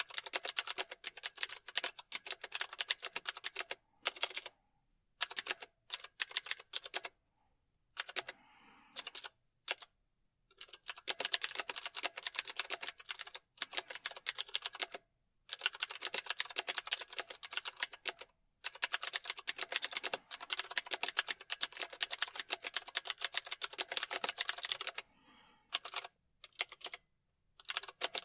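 Computer keyboard typing: fast runs of rapid key clicks, broken by brief pauses several times.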